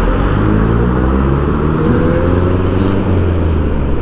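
Road traffic dominated by a large truck's diesel engine running past close by, its pitch shifting up and down over a steady low rumble.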